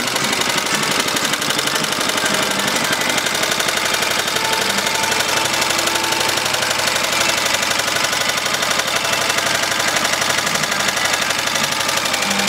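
A 1942 WWII generator set's small air-cooled single-cylinder engine running steadily at speed, with rapid, even firing beats and no misses.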